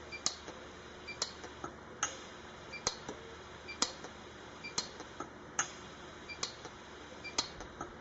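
Lampert PUK 3S pulse arc welder firing repeatedly, one sharp snap a little under once a second, as it fuses filler wire into a seam in thin silver. It is set to its gap-filling mode on the lowest setting.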